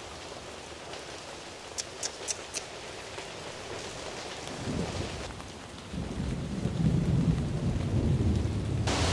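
Steady rain with thunder: a deep rolling rumble comes in about halfway through and swells louder toward the end. A few sharp ticks sound around two seconds in.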